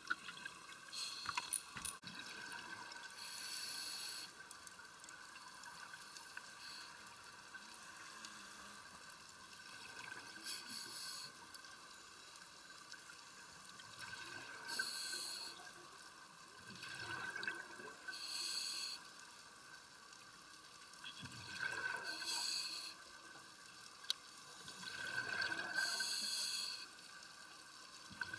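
Scuba diver breathing through a regulator underwater: a rush of exhaled bubbles about every three seconds over a steady background hum.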